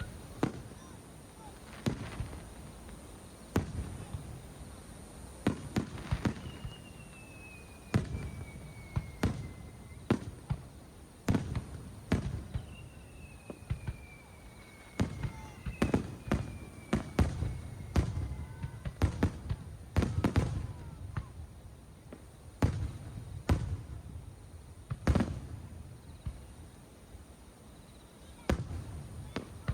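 Aerial fireworks shells bursting in an irregular series of booms and cracks, several of them loud, with a few long whistles falling in pitch.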